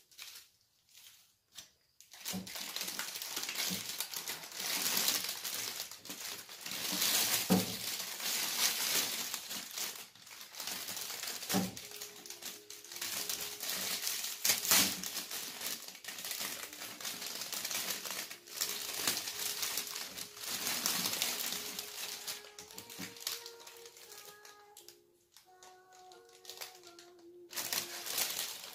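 Cellophane gift wrap crinkling and rustling in bursts as it is pulled open by hand, with a few sharp clicks. From about halfway a simple tune of held notes plays quietly underneath.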